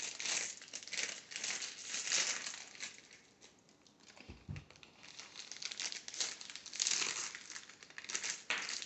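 Crinkling of a plastic M&M's candy bag being handled and opened, in several separate bursts with quieter gaps between.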